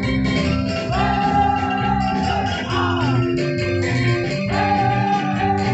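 Saman dance music: singing with held notes over rampak gendang drums and rattling hand percussion, keeping a steady driving beat.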